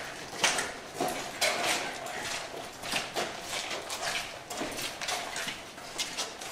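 Footsteps on a concrete floor strewn with grit and debris, at about two steps a second.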